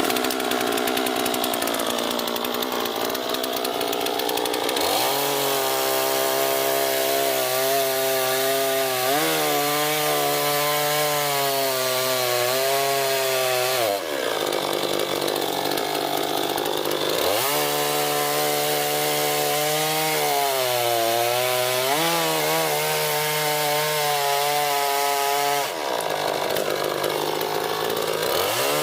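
Chainsaw cutting wood: the motor's pitch drops and wavers while the chain is in the cut, and rises sharply in short gaps about a third and nine-tenths of the way through.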